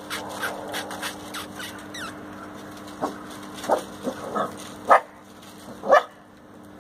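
Stray puppies yipping and whining: a few thin high calls at first, then a string of short high barks from about three seconds in, the loudest two near the end.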